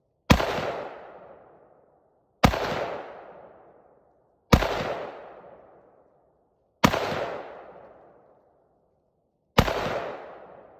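Rifle firing five single shots, one about every two seconds, each report echoing and dying away over about a second and a half.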